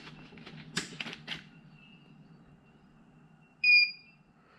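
Hafco Metalmaster DRO readout giving one short electronic beep as it powers up, about three and a half seconds in. A few soft handling clicks come before it, about a second in.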